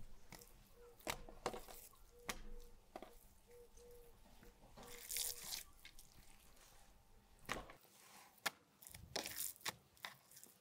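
Light knocks and rubbing of wooden cutting boards on a wooden table, then soft wet slaps and squishes of thin raw meat slices being laid on a board and pressed flat by hand.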